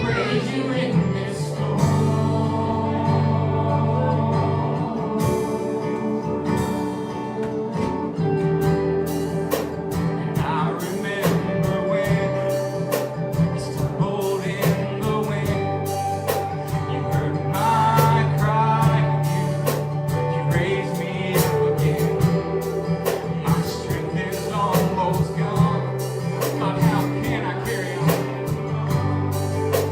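Christian worship song: singing over guitar, bass and a steady drum beat.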